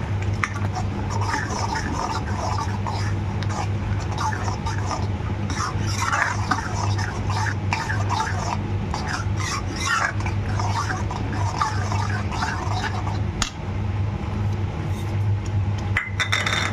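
A steel spoon stirring and scraping thick masala gravy around a metal pan, in a run of short scrapes and clinks over a steady low hum.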